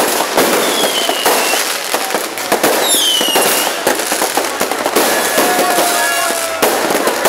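Fireworks going off in a dense run of pops and crackles, with a falling whistle about a second in and another about three seconds in. A steady held tone sounds from about five seconds to near the end.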